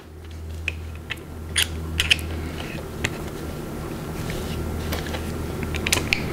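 Irregular small clicks and metallic rattles of a portable drill guide being handled: its chuck, guide rods and depth-stop parts knocking and sliding as a cutter is fitted.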